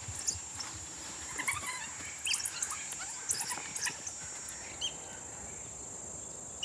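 Steady high-pitched insect drone with scattered short, high chirps and squeaks over it, busiest in the first few seconds.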